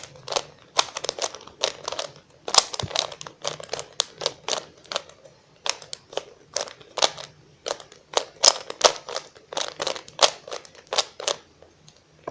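A plastic 3x3 Rubik's cube being turned fast in a speedsolve: a rapid run of clicks and clacks from the layers snapping round, several a second with a few short pauses, stopping about a second before the end.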